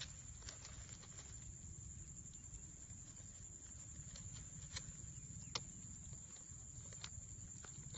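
Wet fishing net and plastic mesh basket being handled by hand: faint scattered taps and clicks, a handful over several seconds, over a low steady rumble.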